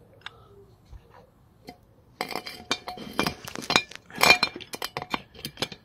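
Metal tools clinking and clattering: screwdrivers knocked and scraped against a motorcycle brake caliper as they are wedged in to block its pistons. It starts about two seconds in as a quick, irregular run of sharp metallic clinks.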